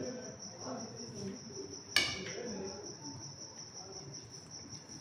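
A cricket trilling steadily in the background: a high, evenly pulsing chirp. A single sharp tap comes about two seconds in.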